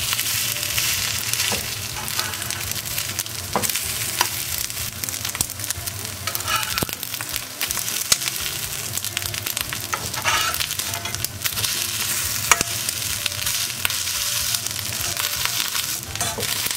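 Rice patties sizzling steadily in sesame oil in an iron frying pan, with a few sharp clicks and scrapes of a metal slotted spatula against the pan as the patties are turned over and pressed down.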